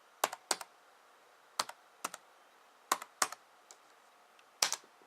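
Keys pressed one at a time on a ThinkPad T61 laptop keyboard: about eight separate clicks, irregularly spaced, some in quick pairs.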